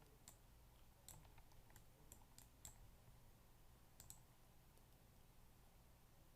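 Near silence with faint computer mouse clicks, scattered and irregular, a cluster in the first three seconds and a pair about four seconds in.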